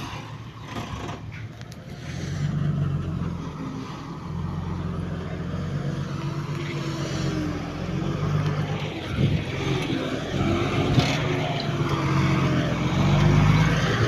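Engine of a heavy construction machine running. It comes up louder about two seconds in and then runs steadily with small shifts in pitch, after a few clicks and knocks at the start.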